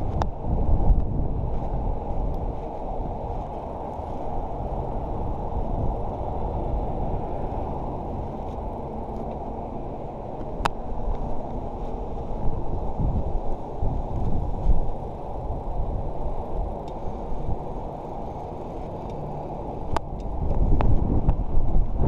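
Wind rumbling on an action camera's microphone as a bicycle is ridden along paved streets, a steady low rush with gusts that grow louder near the end. A couple of sharp ticks, one about halfway through and one near the end.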